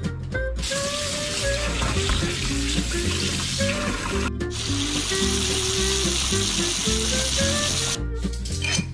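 Tap water running hard into a stainless-steel mesh strainer as fruit is rinsed in the sink, a steady splashing hiss that starts about half a second in, breaks off briefly about halfway and stops near the end. Light jazz music plays underneath.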